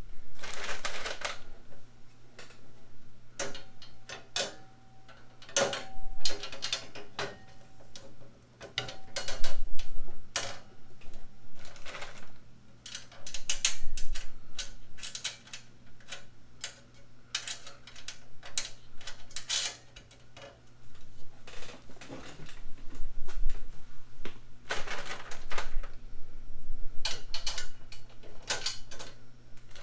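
Painted sheet-steel tool cart frame parts knocking and clicking together as a crossbar is fitted and bolted onto the legs, with loose rattles and clatters of hardware and a brief metallic ring a few seconds in.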